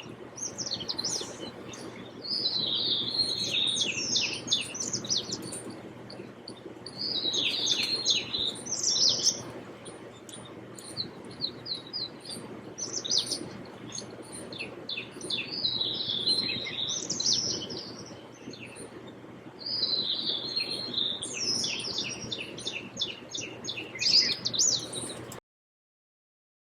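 Birds chirping and singing in bouts of quick, high notes, a new burst every few seconds, over a faint steady background; the sound cuts off suddenly near the end.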